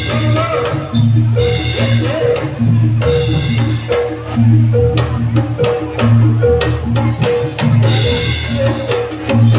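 East Javanese jaranan gamelan music: drums and tuned gongs play a fast repeating pattern of short, steady notes with sharp strikes.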